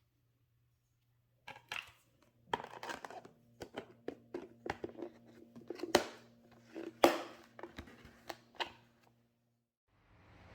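Kitchen handling sounds: a string of light clicks, knocks and crinkly rustles, as of utensils, containers and packaging being handled, over a low steady hum that stops near the end.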